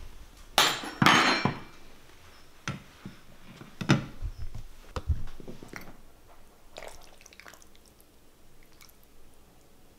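A glass baking dish is set down on a table with two loud clattering knocks, then a serving spoon gives a few lighter clinks and scrapes against the glass as baked pasta is scooped onto a plate.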